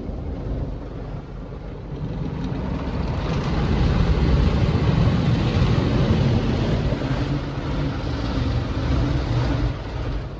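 Automatic touch car wash working over the car, heard from inside the cabin: a loud rushing wash with a deep rumble that swells about three seconds in and eases off just before the end.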